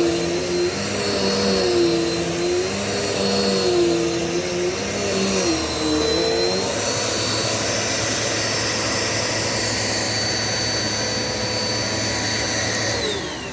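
Dirt Devil Multi-Surface vacuum cleaner running, its motor whine wavering up and down in pitch for the first half, then holding steady. Near the end it is switched off and the whine falls away as the motor winds down.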